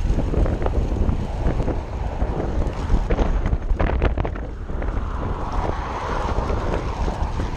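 Wind buffeting the microphone of a camera riding along on a moving bicycle, a steady low rumble. A few sharp clicks come about three to four seconds in, and a higher hiss joins from about five seconds in.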